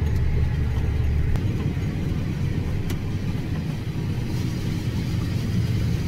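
Farm tractor engine running steadily, heard from inside the tractor cab as a low drone; about a second and a half in, its deepest hum drops away.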